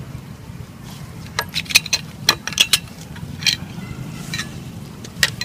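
Plastic and metal parts of a paddlewheel aerator clicking and knocking as they are handled: an aluminium shaft worked out of the black plastic paddle wheel hub and its plastic couplings. About ten sharp, irregular clicks, bunched in the middle, over a low steady hum.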